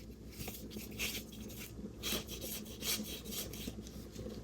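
A paintbrush scrubbing acrylic paint, with a run of short scratchy strokes rubbing against the surface, about two a second.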